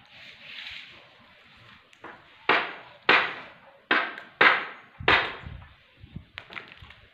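A run of five sharp bangs, roughly two-thirds of a second apart, each dying away briefly, followed by a few fainter knocks near the end.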